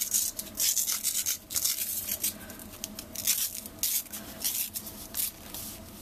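Double-sided hook-and-loop (Velcro) strap being unrolled, peeling off itself in short, irregular rasps and rubbing strokes.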